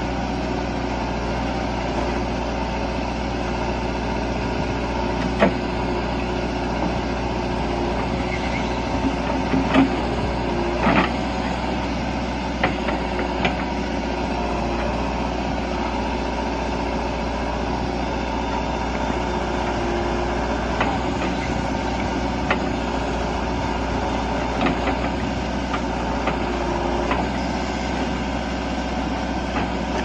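JCB 3DX backhoe loader's diesel engine running steadily while the backhoe arm digs, with a few short sharp knocks scattered through the middle.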